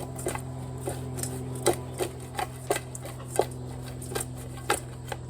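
Chicken wings being tossed in a pan with seasoning: irregular knocks and clatters of the wings against the pan, about two a second.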